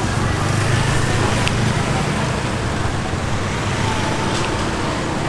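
Street traffic with motorbike engines running past, a steady low hum that is strongest in the first two seconds.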